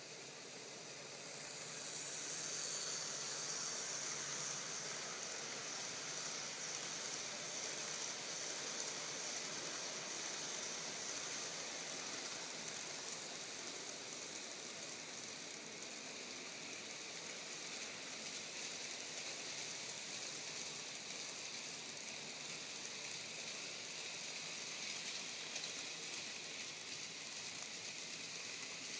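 Model electric freight train running past on model track: a steady high hiss of wheels and motor that swells about two seconds in and then holds.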